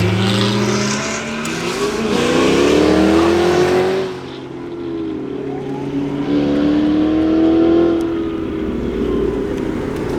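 Car engine accelerating hard, its pitch rising steadily through one pull, dropping briefly about four seconds in, then rising again through a second pull.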